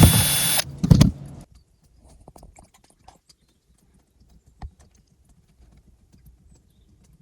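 A power drill running at speed, stopping about half a second in, then a loud knock about a second in. Only faint taps and clicks of handling follow.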